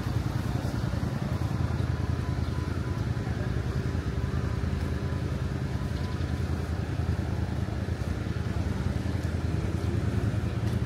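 Steady low rumble of city road traffic, continuous and unchanging.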